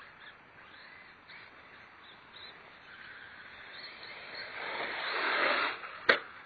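Electric RC monster truck running on loose dirt, its motor and tyres building up and peaking as it hits a jump, followed by a single sharp knock. Faint bird chirps early on.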